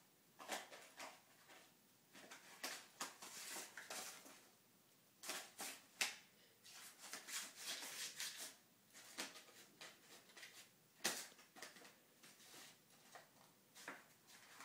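A kitten scratching, tapping and rustling against cardboard boxes as it plays: faint, irregular scrapes and clicks, with sharper taps about six and eleven seconds in.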